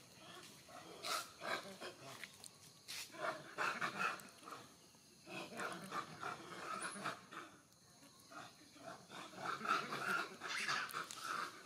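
Long-tailed macaques calling during a squabble: many short, irregular calls, with one male making an open-mouthed threat.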